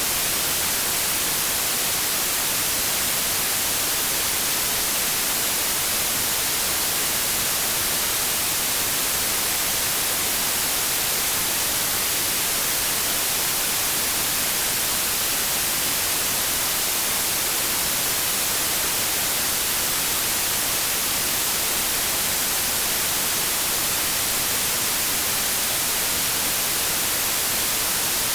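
Television static: the steady hiss of a TV tuned to a channel with no signal, an even white noise that does not change.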